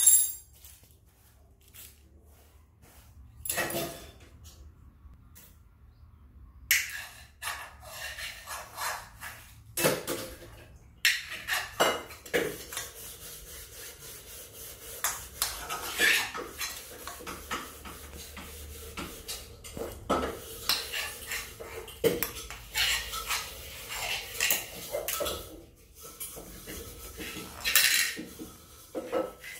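Metal spoon clinking and scraping in a black kadai (wok) as a toddler stirs it, with the pan knocking about: irregular clatter with a quieter spell a few seconds in.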